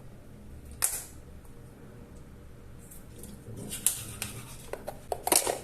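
Small objects being handled: short sharp clicks and taps, one about a second in and a quick run of them near the end.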